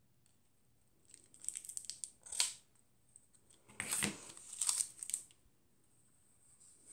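Crinkly rustling and tearing of packaging being pulled off a roll of pearl-bead trim, in two bouts, with the loudest rip about two and a half seconds in.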